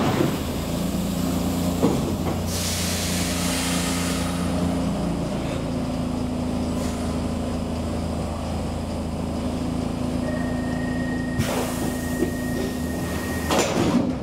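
Stockholm Metro C6 subway train standing at a platform with a steady low hum from its onboard equipment. A long hiss of released air comes a few seconds in, and later a steady high tone sounds for about three seconds, ending with a sharp clatter near the end.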